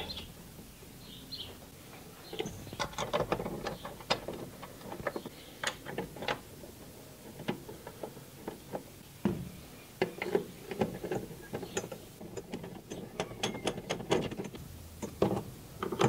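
Mounting screws being put in and run down on a washing machine's new transmission: irregular small metallic clicks and ticks, starting about two seconds in.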